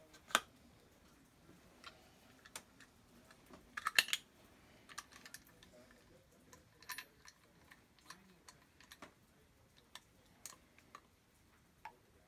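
Scattered small clicks and taps of plastic parts being handled and fitted together by hand: a clear acrylic shower handle and its plastic stem pieces. A short cluster of louder clicks comes about four seconds in.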